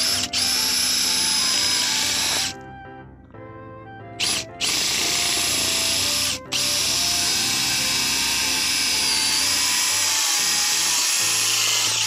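Cordless drill boring a hole through a wooden 2x4 board, its motor whining at a high pitch under load. It runs for about two and a half seconds, stops, gives a short blip near four seconds, then drills again with one brief pause around six and a half seconds, stopping at the end.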